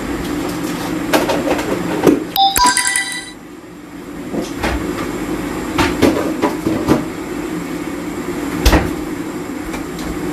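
Kitchen cooking sounds over a steady hum: scattered clinks and knocks of a spoon against a saucepan on a gas hob. About two and a half seconds in, a short electronic chime of a few clear tones sounds for about a second.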